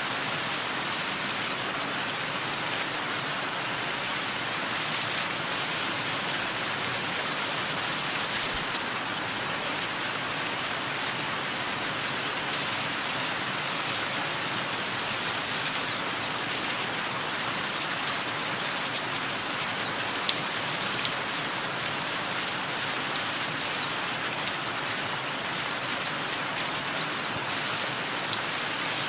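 Steady rain falling, with a bird giving short, high, falling chirps, often in pairs, every second or two over it.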